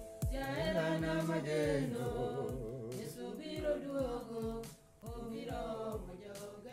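Voices singing a gospel song together, the pitch wavering with vibrato, over a regular low beat. The singing drops out briefly about five seconds in.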